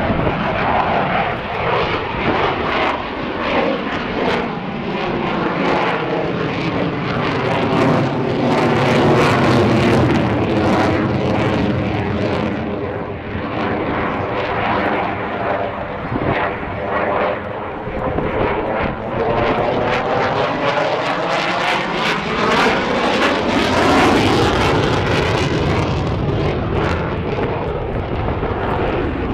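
Military jet fighter's engines roaring loudly as it climbs and manoeuvres in a display flight. The rushing tone sweeps slowly down and then back up as the jet moves across the sky.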